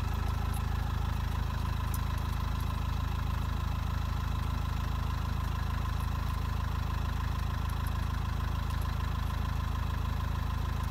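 Steady low hum of an idling engine, even and unchanging, with a faint high tone above it.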